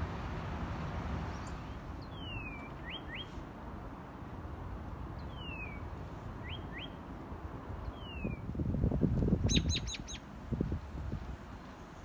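Northern cardinal singing: a falling whistle followed by two quick rising whistles, the phrase repeated three times about three seconds apart. Near the end come four quick sharp chips, over a short burst of low rumble.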